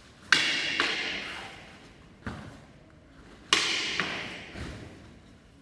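Synthetic (nylon) messer blades clacking together in two quick sparring exchanges: a loud sharp clack followed by a second about half a second later, a duller knock near the middle, then another loud clack and follow-up. Each strike rings on with the echo of a large, bare hall.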